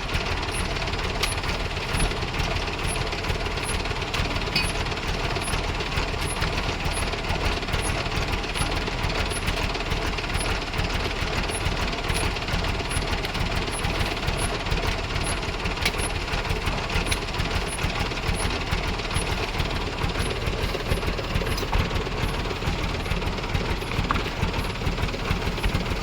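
Mitsubishi Canter truck's diesel engine running steadily with a fast knocking, rattling clatter, with a faint high pip repeating about once a second.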